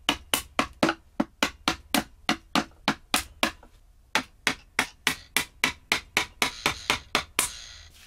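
Claw hammer tapping the butt of a screwdriver in quick, even strokes, about four a second, driving the blade into the seam of a plastic battery-case lid to pry the top cover off. A short scraping noise comes about seven seconds in.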